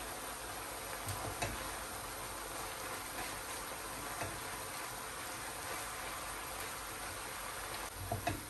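Minced chicken, shredded cabbage and carrot sizzling steadily in a frying pan as they are stirred with a silicone spatula, with a few light knocks of the spatula against the pan, two of them close together near the end.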